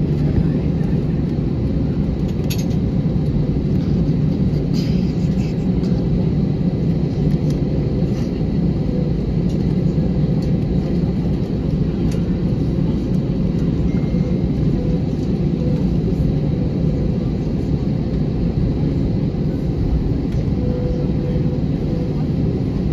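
Steady low rumble inside an Airbus A320 cabin as the jet taxis slowly to the gate, its engines at idle and the cabin air running, with a few faint clicks.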